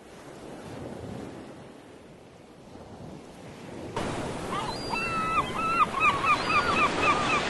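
Surf washing on a beach, swelling and easing back. About halfway through, the sound cuts to a louder beach scene with a quick run of short, repeated high calls.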